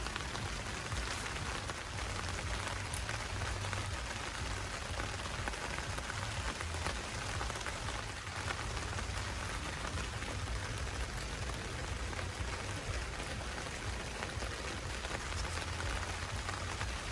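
Heavy rain falling steadily, an even wash of drops with no let-up.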